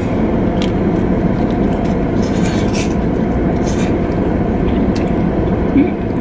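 Steady low rumble of an idling car heard from inside the cabin, with a few brief slurps of noodles over it.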